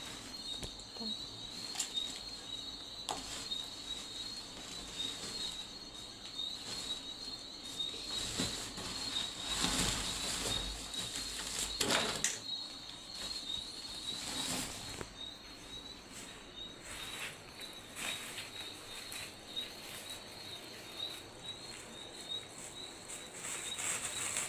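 Outdoor rural ambience: a steady, rapidly repeated high chirp runs throughout over a background hiss, with a few short knocks and rustles in the middle.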